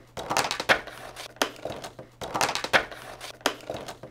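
Clear plastic blister packaging being handled and pulled apart, crackling and crinkling in an irregular run of sharp crackles.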